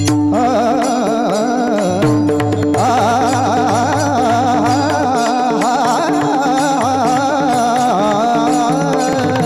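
Marathi kirtan music: a melody line that glides and wavers in pitch over a steady drone, with a low drum pattern and dense high cymbal strokes from about three seconds in.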